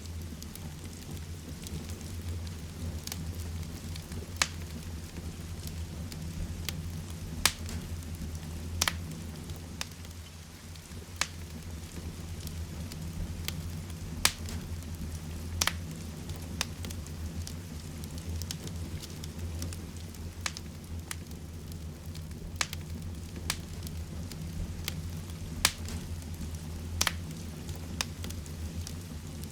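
Heavy rain falling steadily with a low rumble, mixed with a crackling fireplace fire that gives irregular sharp pops, several louder ones every couple of seconds.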